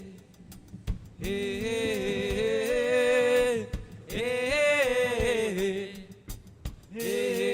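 Background music: a song with one singing voice in long, wavering sung phrases, each about two seconds, with short pauses between them.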